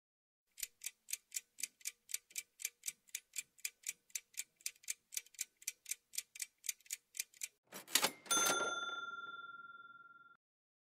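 Quiz countdown timer sound effect: clock-like ticking at about four ticks a second for roughly seven seconds, then a bell-like ding about eight seconds in that rings and fades away over two seconds as the time runs out.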